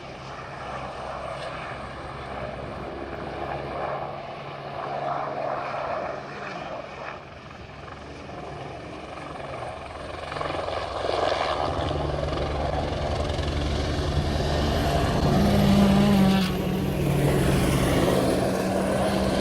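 Helicopter in flight, its rotor and engine running steadily, growing louder from about halfway through and loudest a few seconds before the end.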